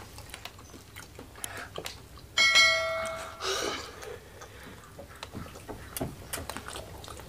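A single bell-like chime rings about two and a half seconds in and dies away within a second, the bell sound effect of an on-screen subscribe-button animation. Around it, soft eating sounds of fingers in rice and chili sambal and chewing.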